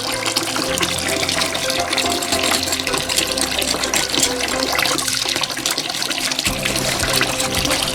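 Water splashing and sloshing as fish are washed by hand to rinse off sand, with background music and its bassline underneath.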